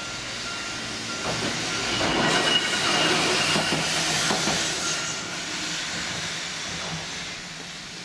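Keifuku Electric Railroad tram passing over a level crossing, its wheels clattering on the rails, loudest a couple of seconds in and then fading as it moves away. The crossing's steady warning tone stops about a second in.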